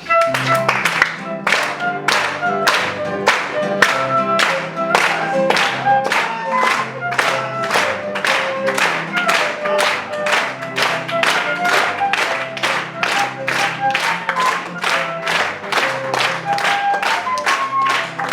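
Flutes playing a lively melody over a lower accompaniment while an audience claps along in time, about two claps a second.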